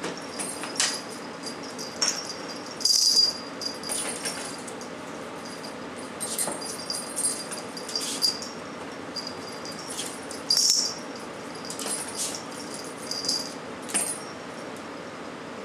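Pet ferrets scuffling and wrestling, a small collar bell jingling in short bursts as they move, loudest about three seconds in and again near eleven seconds.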